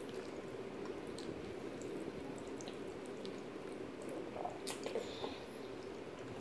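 Quiet chewing and mouth sounds of someone eating pasta, over a steady low room hum, with a couple of light clicks of a fork in the dish about two-thirds of the way through.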